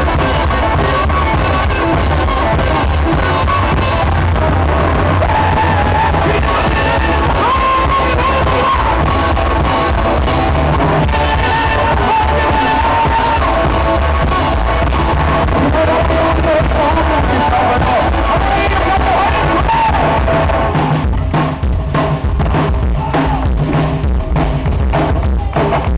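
Live rock and roll band playing: slapped upright bass, electric guitar and drum kit, with vocals. About 21 seconds in, the full sound gives way to a run of separate accented hits.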